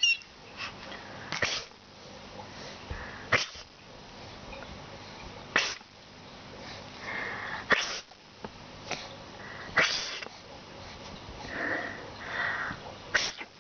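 A person sneezing again and again, about six sharp sneezes roughly two seconds apart, with a baby's squeals of laughter in between.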